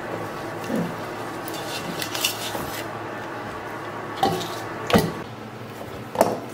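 A knife and gloved hands working a sturgeon on a plastic cutting board while gutting it: a handful of short knocks and clinks of the blade and fish on the board, the loudest about five seconds in. A steady hum runs underneath.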